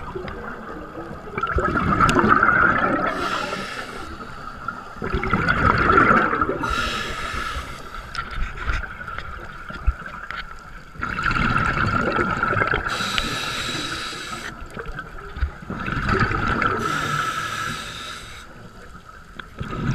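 Scuba diver breathing through a regulator underwater: about four slow breath cycles, each a hiss of inhaled air followed by a gurgling rush of exhaled bubbles.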